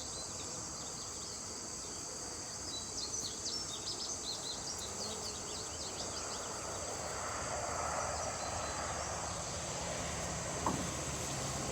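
Steady high-pitched chorus of insects, with a run of short bird chirps from about three to six seconds in.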